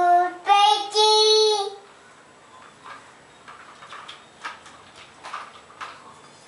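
A toddler's high voice sings out in three drawn-out notes, each a little higher than the last, for about two seconds. After that only faint, scattered light taps are heard.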